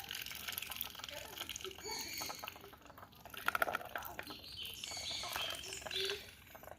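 Birds calling: short, high chirps and whistles, repeated off and on.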